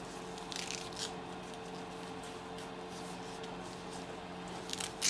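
Faint rustling and scuffing as a dust mask's straps are pulled and fitted behind the head, about half a second in and again near the end, over a steady hum.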